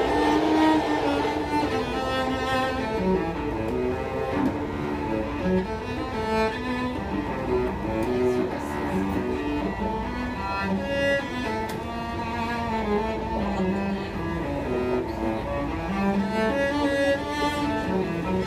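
Solo cello, bowed, playing a melody of changing notes with no breaks, over the steady low rumble of the train car.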